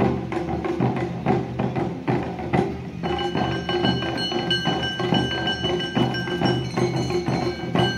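Live Awa Odori hayashi music: drums and a small hand gong beat a steady rhythm, and a high bamboo flute melody joins about three seconds in.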